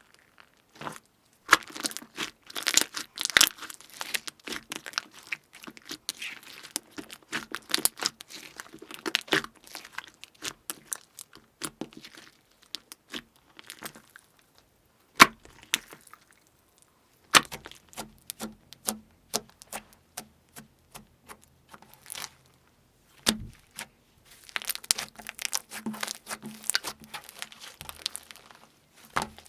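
Crunchy slime crackling and snapping as it is squeezed and pulled apart. It comes as dense runs of small crackles, broken by a few sharp, louder single snaps midway through.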